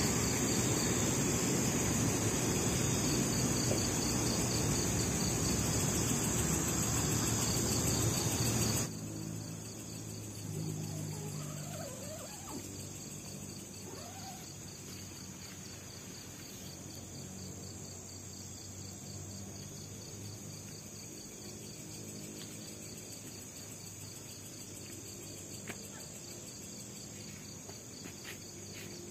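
Night insects, mainly crickets, chirping steadily, with one insect's rapid pulsing trill running through. For about the first nine seconds a louder rushing noise lies under them and then cuts off suddenly.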